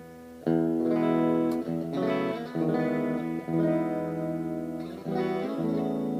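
Fernandes FST-70, a late-1970s Japanese Stratocaster-style electric guitar, playing ringing chords. After a brief quiet gap, a chord is struck about half a second in, followed by several more chord changes.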